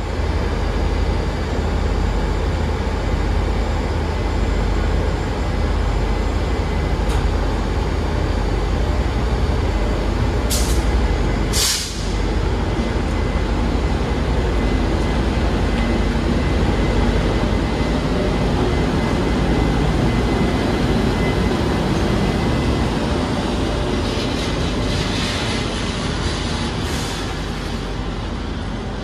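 Passenger train running, a steady low rumble heard from inside the carriage, with two short hisses about ten and twelve seconds in.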